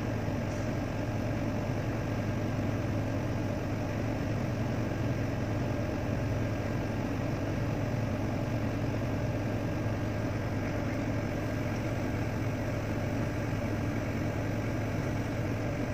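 Vehicle engine idling with a steady low hum, heard from inside the cab.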